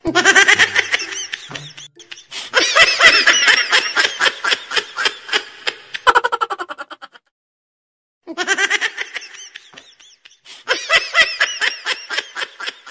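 Someone laughing hard in quick, high-pitched bursts of giggling, with a second-long pause a little past the middle before the laughter starts again.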